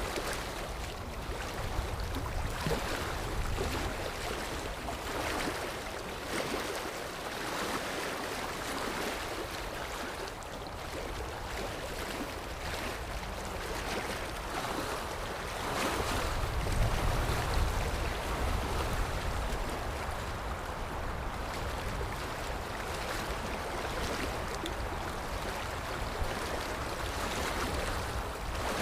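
Ocean surf: waves washing in as a steady rush that swells and falls back, with one deeper, louder surge a little past the middle.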